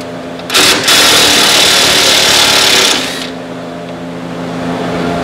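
A power tool runs for about two and a half seconds, starting half a second in, as it undoes a 10 mm bolt. A steady background hum continues underneath.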